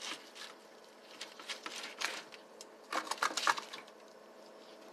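Carving a roast turkey in a disposable foil pan: irregular clicks, scrapes and crinkles from the utensil and the pan. They are busiest about three seconds in.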